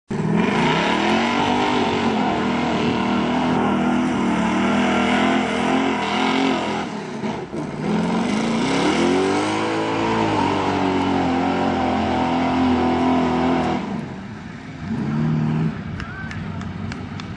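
Old Chevy pickup truck's engine revving hard as it drives through a mud bog pit, its pitch rising and falling with the throttle. It climbs at the start, dips briefly about seven seconds in, holds high, then falls off near the end after one short last rev.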